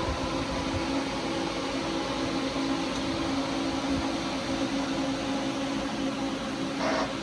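Steady whir of cooling fans and a constant hum from a radio repeater site's equipment rack. A few short faint sounds come in near the end.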